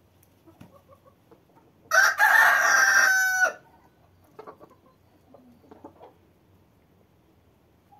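A rooster crows once, loud, starting about two seconds in and lasting about a second and a half. A few faint short calls and scuffs follow.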